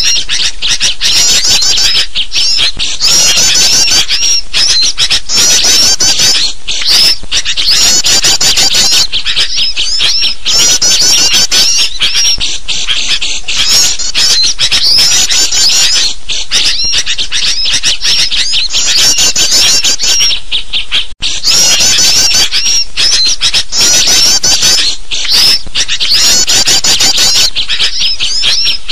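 Bird-lure recording of sooty-headed bulbuls and other small birds calling agitatedly: a loud, dense, unbroken chorus of high chattering, squawking calls. The sound drops out for an instant about 21 seconds in.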